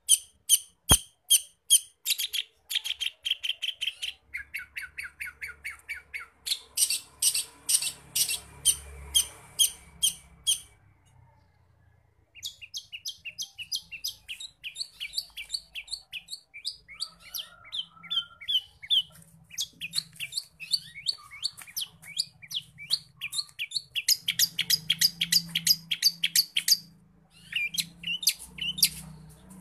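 Long-tailed shrike (cendet) singing a loud, rapid run of sharp, high chirps, several a second, its song packed with mimicked calls of other birds, with a short break about a third of the way through.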